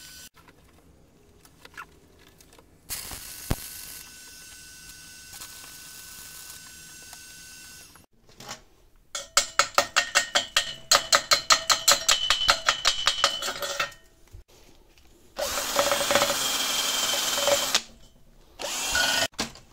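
A stick-welding arc hissing and crackling for several seconds. Then a slag hammer rapidly chipping slag off the fresh weld, about five strikes a second for some four seconds, followed by a cordless drill spinning a wire-wheel brush against the steel weld, once for about two seconds and again briefly near the end.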